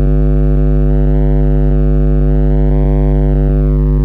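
Car subwoofer in a rod-braced enclosure playing one loud, steady low bass note for a sound-pressure reading, with a stack of buzzy overtones above it.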